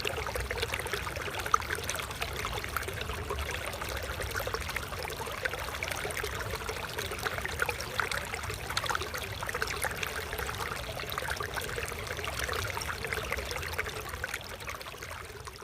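Flowing water in a small stream, a steady trickling with many small splashes.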